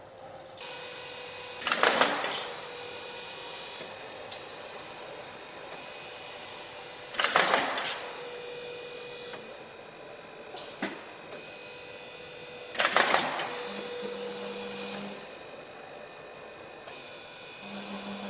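Roofing-sheet roll forming machine running with a steady hum, broken three times, about five to six seconds apart, by a loud burst of noise as its cutter shears the formed sheet.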